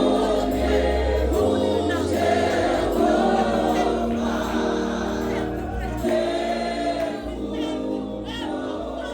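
Choir singing gospel music with instrumental backing, gradually getting quieter toward the end.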